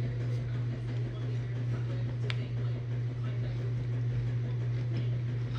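Steady low hum with faint scuffling from a cat and puppy play-wrestling on a leather couch, and one sharp click a little over two seconds in.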